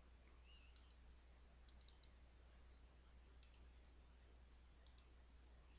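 Faint computer mouse button clicks, mostly in quick pairs, a few times over near silence with a low steady hum.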